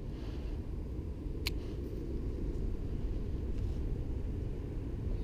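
Steady low outdoor rumble that swells slightly, with one sharp click about one and a half seconds in.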